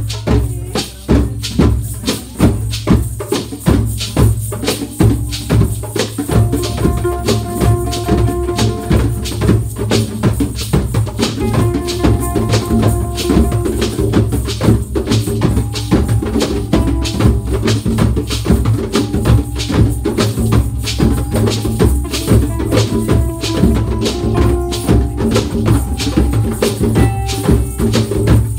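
Live hand-drum ensemble of djembes and a goblet drum playing a fast, steady rhythm. A held melody line joins over the drumming a few seconds in.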